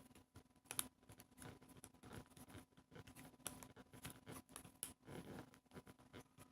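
Faint, scattered small clicks and rustles of objects being handled, over a low steady hum.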